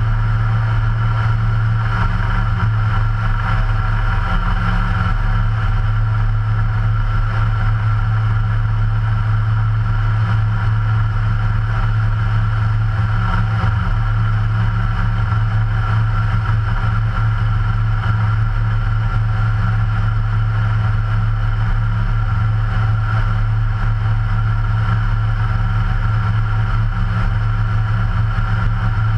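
Ikarus C42 ultralight's 100 hp Rotax 912 ULS flat-four engine and propeller running steadily in flight, a constant even drone.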